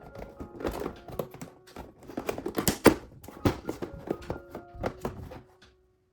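A quick series of knocks and taps, irregular and strongest about halfway through, stopping shortly before the end, over light mallet-percussion background music.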